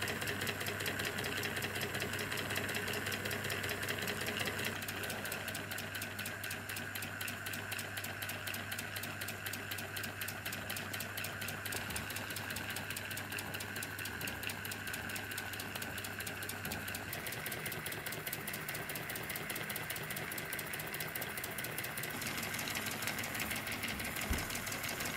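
Miniature twin-piston toy steam engine running on steam from its meths-fired boiler, ticking in a rapid, even mechanical rhythm.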